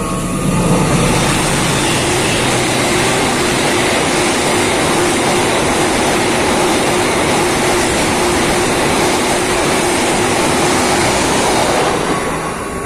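Express passenger train, a diesel locomotive hauling stainless-steel coaches, passing a station platform at speed: a loud, steady rush of wheels on rail that swells as the locomotive goes by and eases off slightly near the end as the last coach passes.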